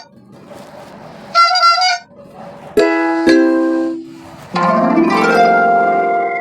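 Huawei Ascend G5 phone tones played one after another: a short chime about a second and a half in, then a tune with a sharp start that rings out and fades by about four seconds, then a quick rising run of notes that builds into a held chord to the end.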